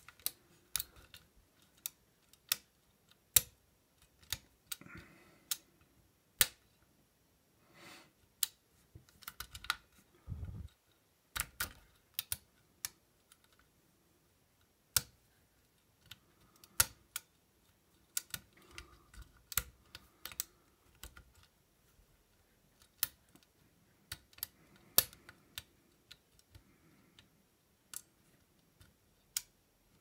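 Lock pick and tension wrench working in the keyway of an old Eagle mailbox pin-tumbler lock: sharp, irregular metal clicks and light scraping as the pins are lifted and set, with a duller knock about ten seconds in.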